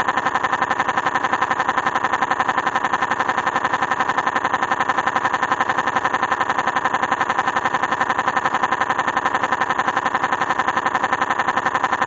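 Car engine sound effect running steadily, with an even pulsing of about eight beats a second.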